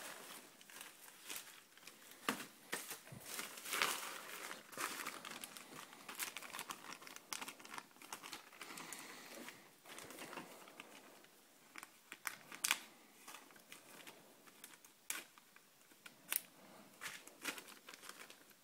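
Plastic packaging crinkling and rustling as a mailer is torn open and small plastic bags are handled, with irregular sharp crackles, busier and louder in the first half.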